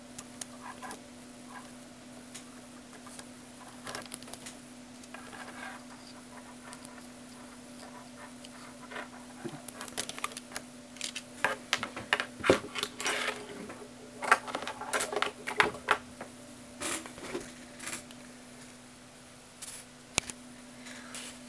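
Lego plastic parts and cables being handled: irregular clicks, taps and rustles, busiest in the middle stretch, over a steady low hum.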